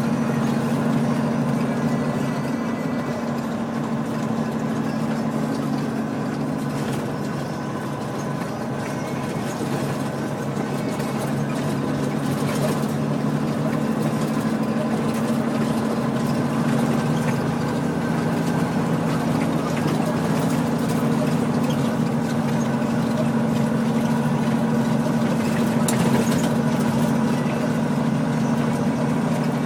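Highway semi-truck's diesel engine running steadily under way, with a few brief knocks about halfway through and again near the end.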